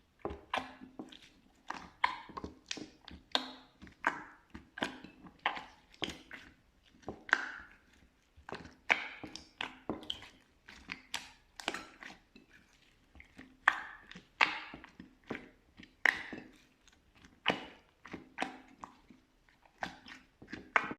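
Slime being pressed and squeezed by hand, giving an irregular run of sticky pops and crackles, several a second.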